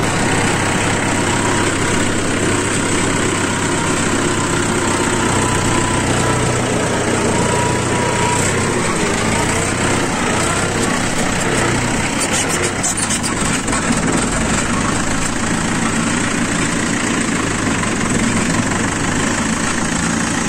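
Mahindra 575 DI tractor's four-cylinder, 2730 cc diesel engine running steadily as the tractor is driven along.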